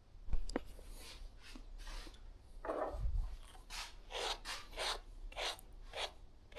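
A series of about ten short rubbing or scraping strokes, with a sharp click just after the start.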